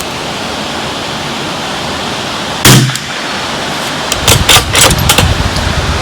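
A single shot from a Bergara BMR .22 LR bolt-action rifle firing a CCI Standard Velocity round: one sharp report about two and a half seconds in, over steady wind hiss. About a second and a half later comes a quick series of five or six sharp clicks, while strong wind buffets the microphone.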